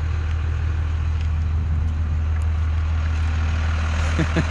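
A vehicle engine running with a steady, low drone that holds the same pitch and level, with a short gliding sound near the end.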